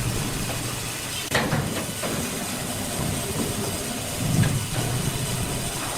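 Heavy machinery running with a steady low hum and hiss, a sharp knock about a second and a half in and a louder low surge a few seconds later.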